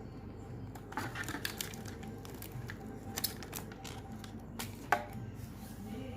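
Unboxing handling noise: packaging rustling and a run of small clicks and knocks as the contents are lifted out of the box, with one sharper knock about five seconds in.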